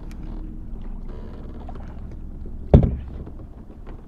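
Small knocks and handling noises in a fishing kayak, with one loud thump on the hull a little under three seconds in.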